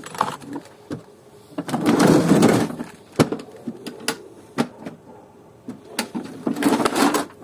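Hand tools being handled: a series of sharp clicks and knocks from metal sockets and their case. There are two longer scraping, rustling stretches, about two seconds in and near the end.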